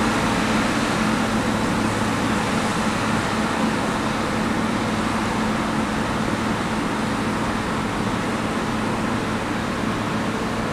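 NICHIJO HTR202 rotary snowplow's diesel engine and snow-blower running steadily under load as it throws snow, with a constant low hum, growing slowly fainter as the machine moves off.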